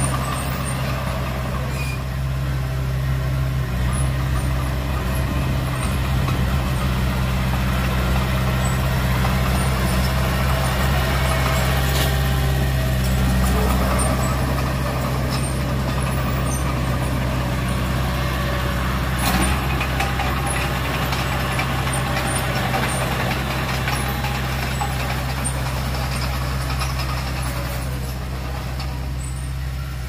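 Diesel engine of heavy earthmoving machinery running steadily, with two sharp clanks partway through.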